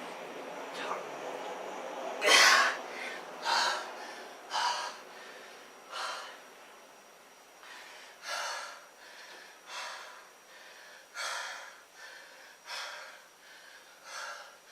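A man breathing hard after push-ups, with a heavy breath about every second and a half. The breaths are loudest a couple of seconds in and then get a little softer.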